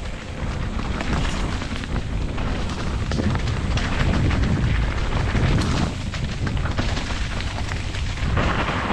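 Wind buffeting an action camera's microphone as a mountain bike rides a dirt trail: a steady low rumble with scattered clattering knocks from the bike over bumps.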